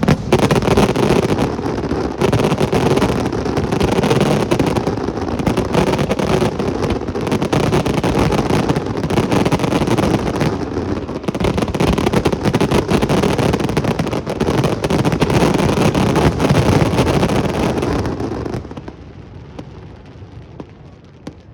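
Aerial fireworks going off in a dense, rapid barrage of bangs and crackling that stops about 18 seconds in, leaving a much quieter background.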